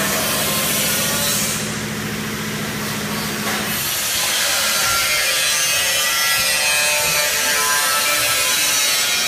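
Double-head tape superfinishing machine running: abrasive film rubbing a shaft with a steady hiss over a low motor hum, and the hum stops about four seconds in.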